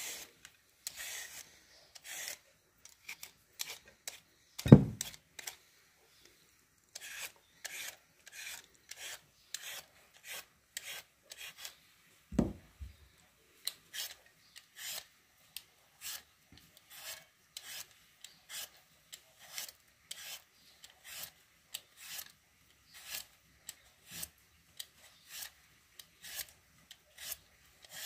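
Y-shaped vegetable peeler scraping skin off a carrot and then a potato in quick repeated strokes, about two a second. Two louder thumps come about five seconds in and about twelve seconds in.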